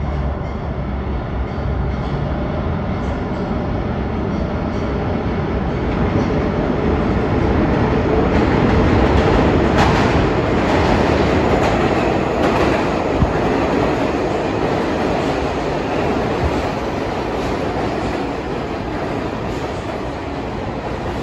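New York City Subway train running through the station on its rails, a continuous rumble and roar with occasional wheel clacks over rail joints. It grows louder to a peak about nine seconds in, then eases off.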